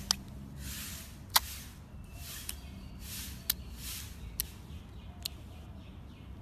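Clear slime being poked and pressed by fingers in a plastic tub: a handful of sharp popping clicks, about one a second, between soft squishing swells.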